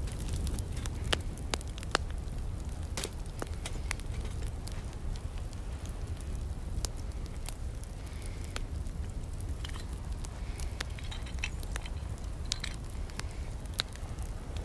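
Wood fire crackling in a small folding metal twig stove, with irregular sharp pops and snaps over a steady low rumble.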